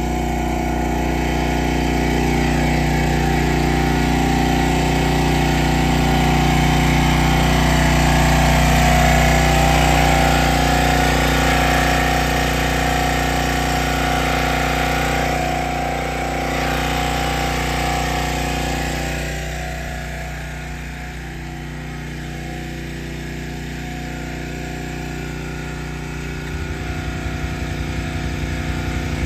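Small gas engine of a 30-ton log splitter, a Kohler, running steadily. Its level dips slightly about twenty seconds in.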